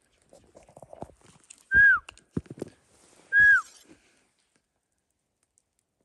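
Two short, loud cow-elk mews about a second and a half apart, each a high whistled note that bends down at the end. Rustling and low knocks come around them.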